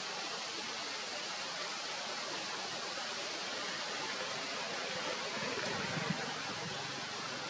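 Steady, even hiss of outdoor background noise, with a faint low rumble swelling about five seconds in and a soft knock near six seconds.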